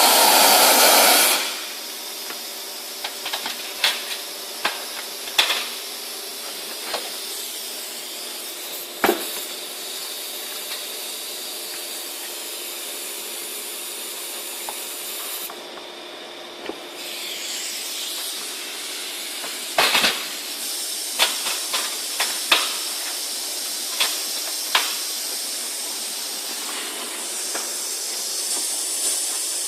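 Compressed-air-driven wet/dry vacuum cleaner running with a steady airy hiss, loud for the first second or so and then dropping abruptly to a lower hiss. Scattered sharp clicks and knocks come over the hiss.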